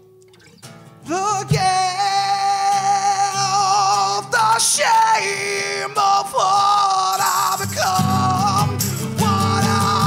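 A male rock singer belts long, held, wavering notes over acoustic guitars. The voice comes in strongly about a second in after a brief hush. Strummed acoustic guitar swells back in under the voice near the end.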